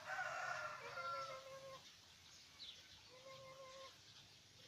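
Birds calling: three long, even calls, each lasting under a second, and a couple of short high chirps.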